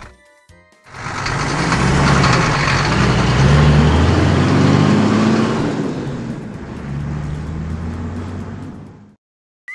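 Heavy truck engine passing by: it comes in about a second in, grows loud, then fades away and stops shortly before the end.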